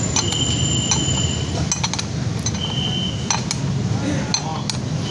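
Wrench clinking on a scooter's rear axle nut as the wheel is tightened on: a few irregular metallic clicks over a steady low hum.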